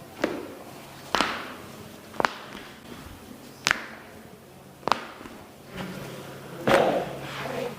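Hands-on chiropractic treatment on a patient's body: about six sharp thumps, roughly one to two seconds apart, the loudest and longest near the end.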